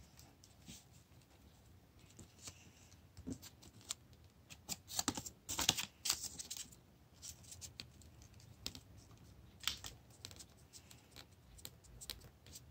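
Faint, scattered rustling and light tapping of construction paper being handled and pressed down by hand, busiest about five to seven seconds in.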